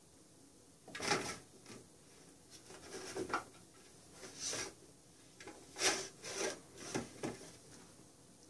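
Cats pawing at a round plastic track-and-mouse toy, pushing the mouse around its track and shoving the toy on a hardwood floor: a string of irregular short scraping and rubbing sounds.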